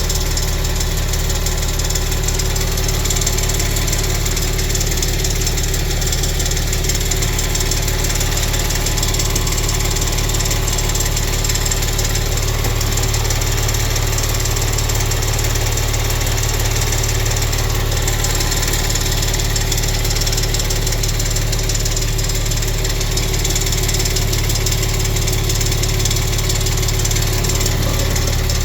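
2014 Maserati Quattroporte SQ4's twin-turbo V6 idling steadily with a rapid ticking from under the right-side turbo.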